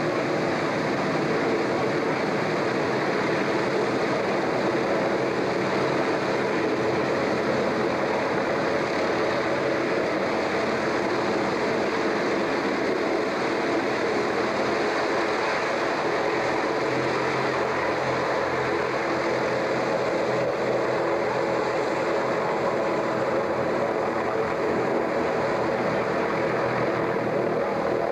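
Large passenger hovercraft running, its four pylon-mounted propellers and engines making a steady, unbroken drone with a constant hum.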